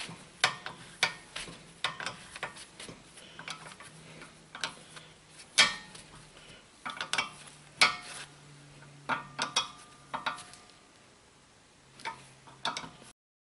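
Hand tools clinking and clicking against the metal of a car's rear disc brake caliper and bracket as its bolts are tightened, in scattered, irregular knocks with a quieter stretch a little before the end.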